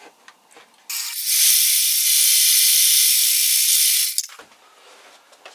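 Electric power saw cutting through a wooden board: a loud, steady hissing run of about three seconds with a steady whine, starting about a second in and stopping shortly after four seconds in.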